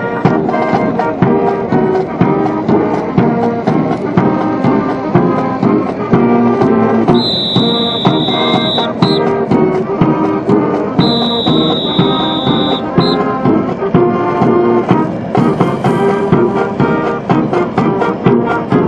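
A brass band of about fifteen players plays a march-style tune with drums, continuously. Twice in the middle, a long, high, steady tone sounds over the band, each followed by a short blip.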